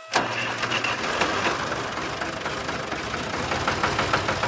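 Small electric motor and gearing of a homemade model tractor trolley's tipping mechanism running, starting suddenly, with a low hum and a rapid, even clattering of ticks as the bed tilts up to dump its straw load.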